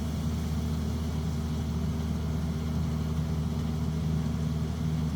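Kubota DC-70 combine harvester's diesel engine running steadily while it cuts rice, a constant low drone with no change in pitch.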